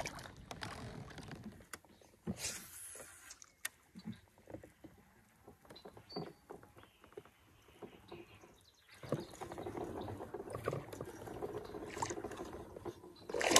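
Small irregular knocks and clicks of gear handled in a fishing kayak, with water lapping and splashing at the hull, denser in the last few seconds.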